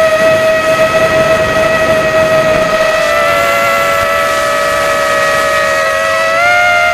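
FPV quadcopter's brushless motors whining steadily, heard through the onboard camera, the pitch shifting slightly with throttle and rising a little near the end.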